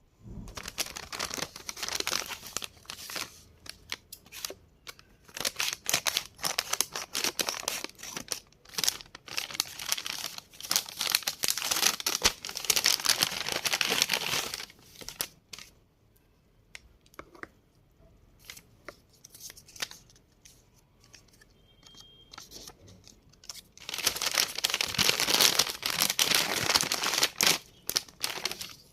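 Plastic blind-bag packaging being torn open and crinkled by hand, in long stretches of loud crackling with a quieter pause of a few small clicks in the middle.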